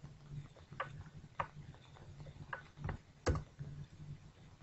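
Several sharp computer mouse clicks at uneven intervals, the one about three seconds in the loudest, over a faint low hum.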